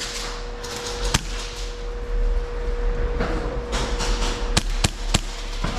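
Airsoft guns firing single shots: four sharp cracks, one about a second in and three in quick succession near the end, over a steady faint hum.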